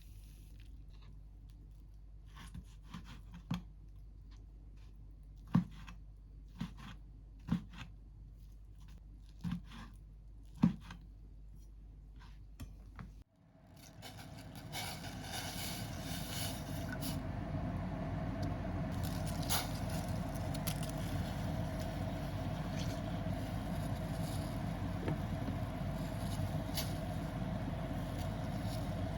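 Kitchen work: a handful of light knocks and taps from utensils, then, about halfway through, a steady rushing noise with a faint hum that builds over a couple of seconds and holds.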